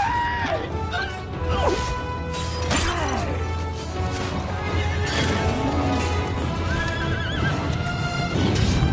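Orchestral film score over the sound effects of a fight: several sharp impacts and gliding animal cries, some of them whinny-like.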